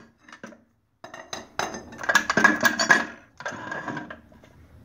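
Toe jack and its steel handle clinking and clattering against metal and the concrete floor at a machine foot. A few scattered clicks come first, then a longer metallic rattle with ringing tones about a second and a half in, and a shorter clatter near the end.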